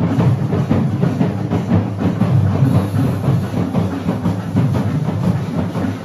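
Festival drum ensemble playing a fast, dense, continuous beat.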